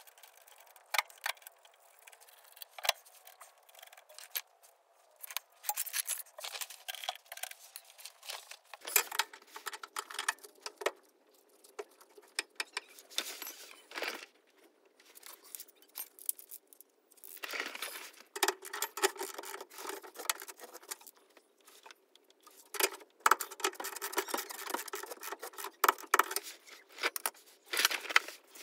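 Metal hand tools and steering parts clinking and rattling in irregular bursts of sharp clicks, busier in the second half, as a tie rod with its ball-joint ends is fitted to the front axle of a VW T2 bus.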